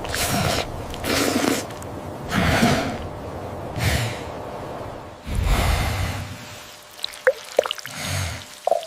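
Cartoon sound effects: about five heavy breaths or sniffs in the first six seconds, the last one deeper, then a run of small drips and plops near the end.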